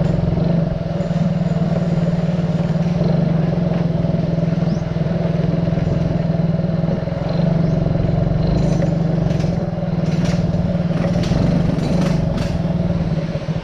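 A small motorcycle's engine running steadily while it is ridden along a road, with a few short clicks or knocks in the last few seconds.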